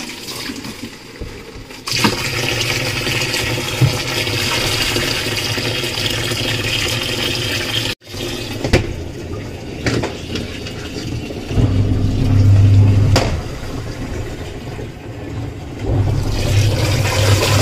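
Water rushing into a top-loading washing machine's drum, splashing over the clothes as the tub fills. A low steady hum joins about two-thirds of the way through and again near the end.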